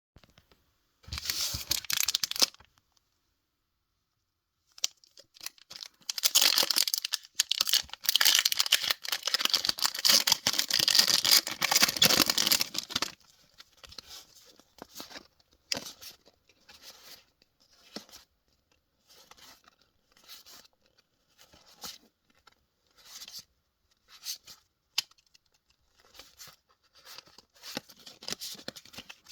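A Pokémon card booster pack being torn open, its foil wrapper crinkling loudly for several seconds. After that the cards are handled, with a string of short, soft flicks and slides.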